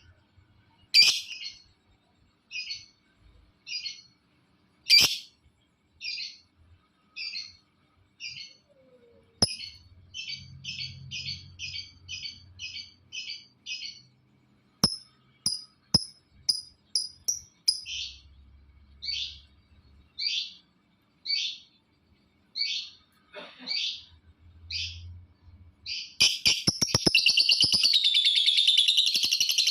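Lovebird calling in sharp, separate chirps about a second apart, with a quicker run of chirps in the middle, then breaking into a loud, continuous, rapid chattering song near the end.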